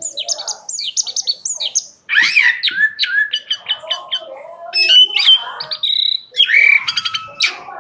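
Chinese blackbird singing a rich, varied song: quick runs of short high chirps, whistled slurs and trills, with a brief break about two seconds in.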